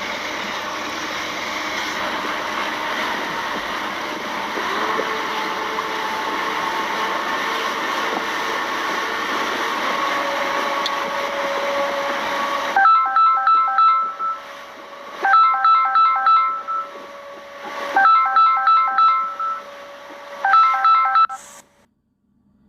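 Steady water and boat noise, then a mobile phone ringtone: a short electronic melody that plays four times with brief gaps and then cuts off.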